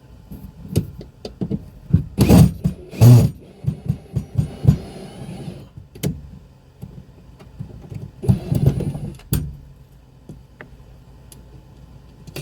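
Clunks, knocks and rattles of a wooden interior wall panel in a camper van being worked loose and shifted, the loudest two about 2 and 3 seconds in. Two short whirring stretches come about 4 and 8 seconds in.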